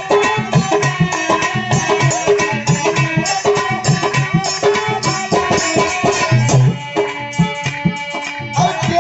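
Bhajan accompaniment: a harmonium playing a held melody over a steady rhythm of hand-drum strokes, an instrumental passage with little or no singing.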